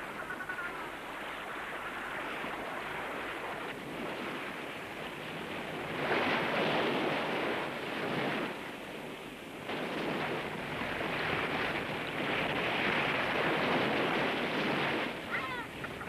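Seawater sloshing and splashing at the surface as a leopard seal thrashes in the shallows, with louder spells of splashing about six seconds in and again from about ten seconds. A few faint high chirps come near the start and near the end.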